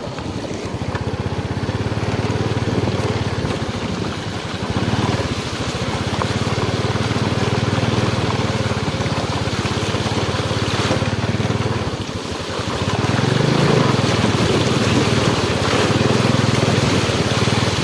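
Small motorbike engine running steadily at low speed through shallow floodwater, with water sloshing and splashing under the wheels. The engine note rises briefly about thirteen seconds in.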